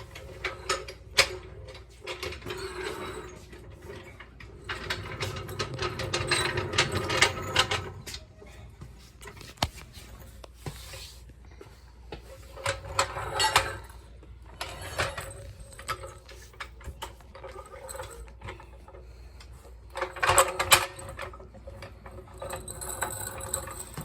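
Metal clattering, rattling and knocking of a garage floor jack being rolled over the floor and set in place, in several bouts with sharp clicks between.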